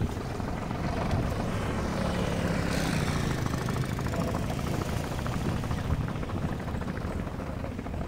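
The engine of the vehicle used to push the fishing boat into the sea, running steadily with a fast, even chugging beat.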